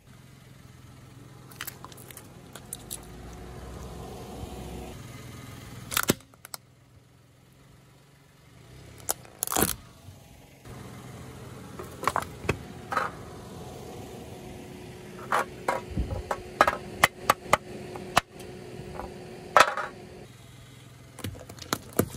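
A car's tyres slowly rolling over and crushing small objects on pavement: a series of sharp cracks and snaps, thickest in the last third, over the low, steady hum of the car's engine as it creeps forward.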